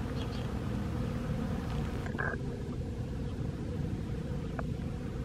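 Many bees buzzing among the blossoms of a flowering shrub: a steady low hum.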